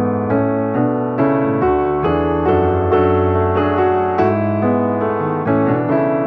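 Background piano music, a steady flow of gentle chords and melody notes.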